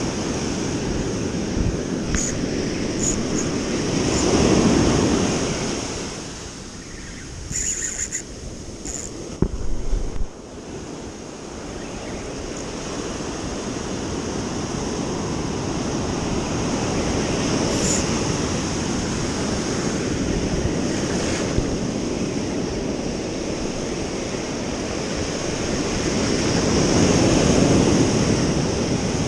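Ocean surf breaking on a sandy beach, swelling louder as waves come in, with wind buffeting the microphone. A few brief sharp knocks come about eight to ten seconds in.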